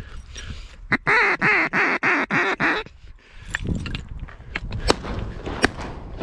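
A loud run of about six mallard quacks in quick succession, each with a raspy, wavering tone, followed by quieter scattered clicks and rustling.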